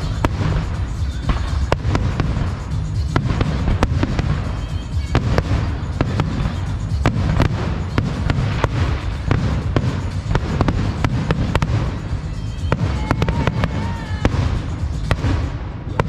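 Fireworks display: a quick, irregular series of bangs and crackles over a steady low rumble.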